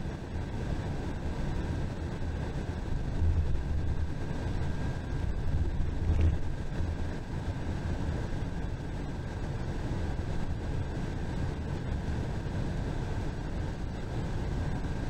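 Inside a bus travelling on the interstate: a steady low rumble of engine and road noise that swells briefly a few seconds in and again around the middle, with a thin steady whine above it.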